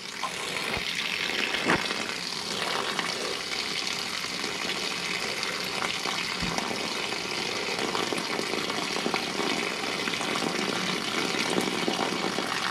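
Outside faucet opened wide, a steady rushing hiss of air and water spitting from the spout as air is bled out of a newly filled water line.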